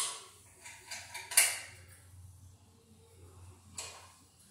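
Several sharp clicks and knocks of hand tools and metal parts being handled at a tractor's steel dash during repair work, the loudest about a second and a half in, over a low steady hum.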